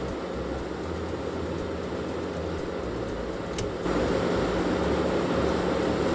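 Bobcat T770 tracked skid steer's diesel engine running steadily, getting louder about four seconds in, with a single click just before.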